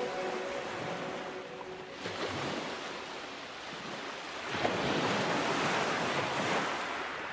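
Sea waves washing onto a beach: a swell of surf about two seconds in and a bigger one at about four and a half seconds, ebbing away near the end.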